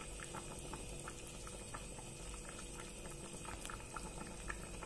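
Chicken and potato curry boiling in a pan, a faint steady bubbling with many small irregular pops, its thin gravy foaming after warm water has been added.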